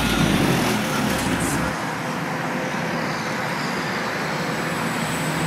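Deep subwoofer bass from a Chevrolet Impala's aftermarket car audio system, cutting off a little under two seconds in. Steady road traffic noise follows.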